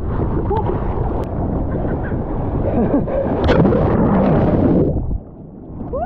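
Seawater rushing and splashing around an action camera held at water level in the shorebreak, mixed with wind buffeting the microphone. The noise cuts off suddenly a little after five seconds.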